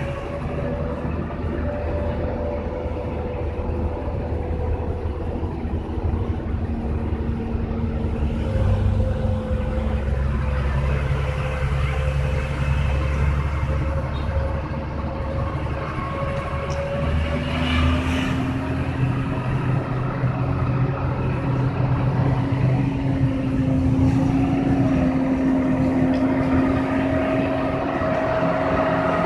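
Hino 500 FM260TI truck's six-cylinder diesel engine running steadily under way, heard inside the cab. About halfway through, the engine note steps up a little in pitch.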